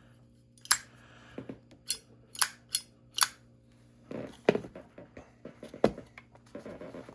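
Zippo lighter lid being flipped open and snapped shut, a run of five sharp metallic clicks, followed by lighter cases clinking and rattling as they are handled and set down.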